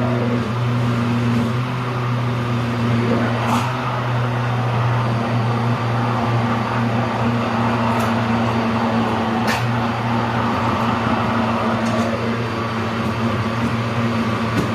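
Electric blender motor running steadily under load, churning a thick pizza-dough batter of eggs, oil, milk and flour, with a constant low hum and a few faint ticks.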